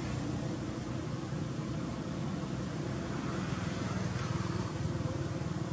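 A motor running steadily, a low even hum under a noisy hiss with no change in pitch.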